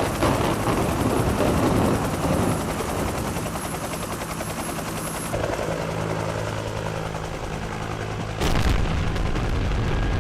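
Dubbed-in sound effects: a helicopter's steady drone under a rattling crackle like gunfire, then a sudden loud boom about eight seconds in.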